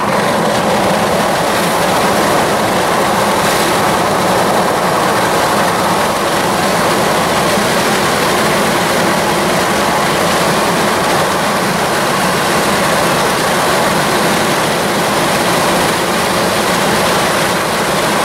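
Steady, even rushing noise of a vehicle on the move: road and wind noise.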